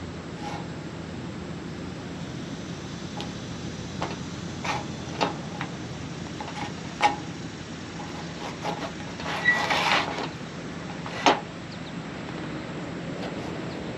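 Awning fabric and rail hardware being handled: scattered clicks and knocks and a brief rustle of fabric about two-thirds of the way in, over a steady low background hum.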